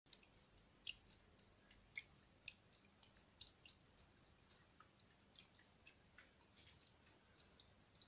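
Faint, irregular drips and ticks of water falling from the fountain's rock into the bottle-cap buckets of a drinking-straw water wheel, about a dozen in all.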